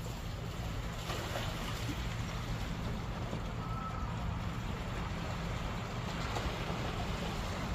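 Wind rumbling on the microphone over a steady wash of calm sea against the concrete tetrapods of a breakwater.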